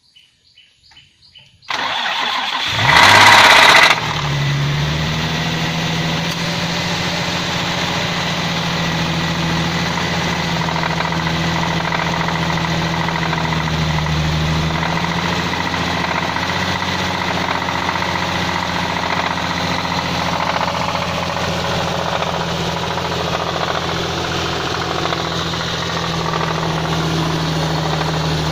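Nissan VQ35DE 3.5-litre V6 cranked and started about two seconds in, flaring up briefly before settling into a steady idle. It knocks from a worn connecting-rod bearing.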